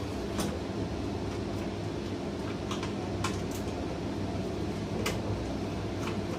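Steady low hum of the room, with about six light clicks and taps from small tools handled on the opened TV's power-supply board and metal chassis.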